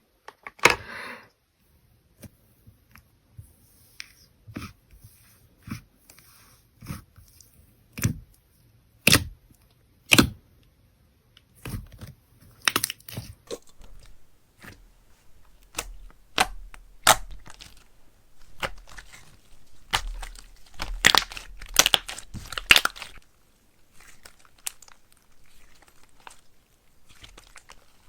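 Clay slime being mixed and squeezed by hand, making sharp clicks and crackles. They come about one a second at first, then thicken into a denser, louder run of crackling in the middle before thinning out near the end.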